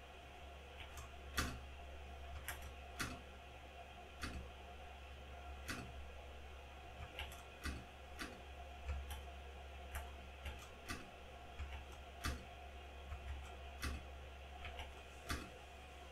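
Single keystrokes on a Lychee G80 Pro mechanical keyboard with stock, unlubed Gateron switches: separate sharp clicks at uneven spacing, about one a second, over a steady low hum.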